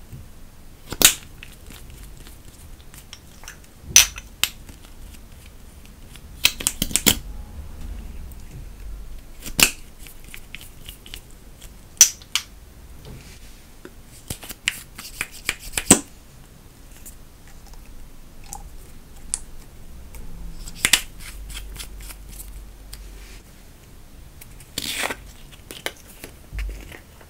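Irregular sharp clicks and taps of plastic makeup packaging being handled over a countertop: a concealer tube's wand applicator pulled out and pushed back, caps and containers set down, sometimes several quick clicks together. A short rasping scrape comes near the end, as the lid of a jar of gold pigment powder is opened.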